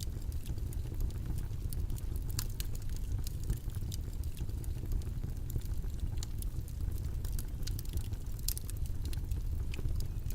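Steady low rumbling background noise with scattered faint clicks and ticks.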